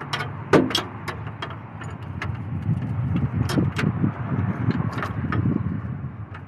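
Hand work at a car's fuel line: a series of irregular clicks and light knocks over a low, uneven rumble.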